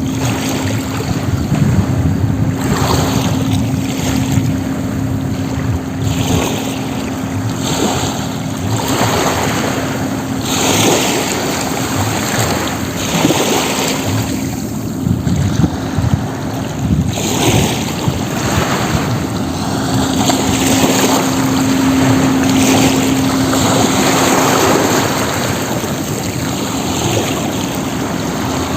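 Sea waves splashing and washing in repeated surges that rise and fall every few seconds, with a steady low hum underneath.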